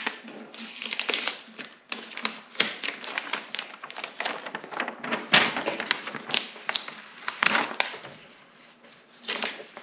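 Paper drilling template and tape being peeled off a snowmobile's metal tunnel: paper crinkling and rustling, with short sharp crackles as the tape comes unstuck.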